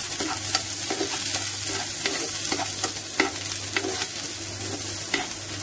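Chopped onion, green chilli, capsicum and tomato sizzling in hot oil in a non-stick frying pan, stirred with a steel spoon that clicks and scrapes against the pan many times.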